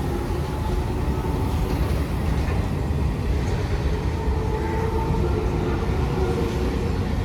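A train running steadily: a continuous low rumble with faint held tones coming and going over it.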